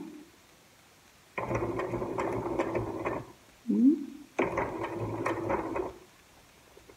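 Domestic electric sewing machine stitching in two short runs, each lasting a couple of seconds, stopping and starting again, as an invisible zipper is sewn in with a special invisible-zipper presser foot. A short rising tone comes between the two runs.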